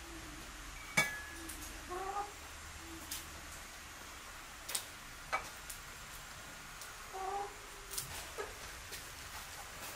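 Short animal calls, one about two seconds in and another near seven seconds, with a few sharp clicks and knocks scattered between them.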